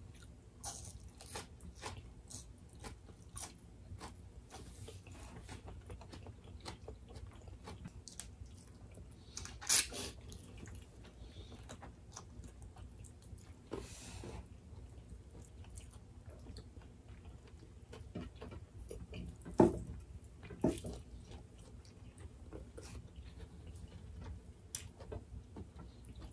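Close-miked eating: people chewing and biting food, with scattered short crunches and mouth clicks and a few louder bites, the loudest about two-thirds of the way through.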